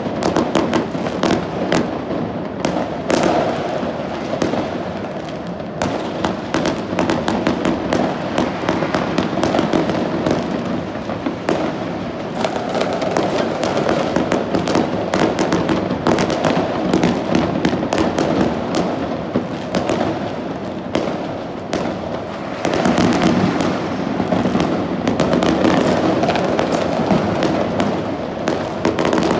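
New Year fireworks and firecrackers going off without a break: a dense, continuous barrage of many overlapping bangs and crackles.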